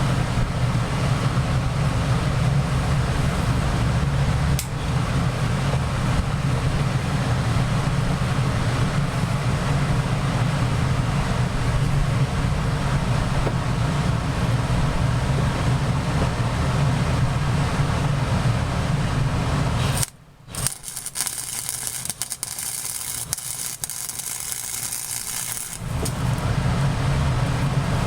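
Welder working on a riding-mower transaxle: a steady buzzing arc hum. About twenty seconds in it breaks off, then gives way for a few seconds to a sharper crackling sizzle before the buzz resumes.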